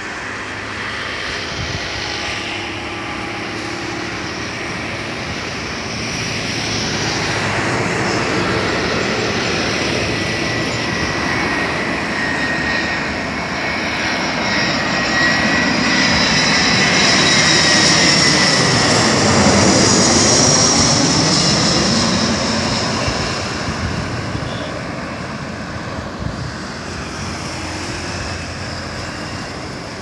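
Airbus A321-211 jet airliner on landing approach, its CFM56 turbofans swelling to a peak as it passes low overhead about two-thirds of the way in, then fading. A thin fan whine falls slightly in pitch as it goes by.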